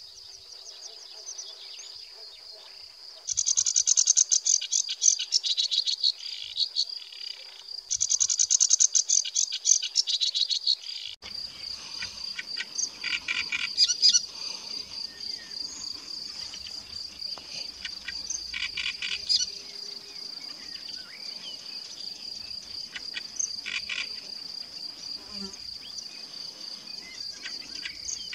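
Sedge warbler singing two long bursts of rapid, chattering song. About eleven seconds in, a great reed warbler takes over with short, harsh repeated phrases every few seconds. A steady high-pitched trill runs underneath throughout.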